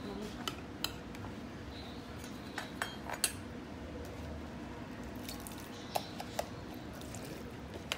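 A metal spoon clinking against a plastic cup and a glass bowl as chopped pork skin is scooped into salsa: a scattering of light, sharp clicks, in little clusters about half a second in, around three seconds in, and around six seconds in.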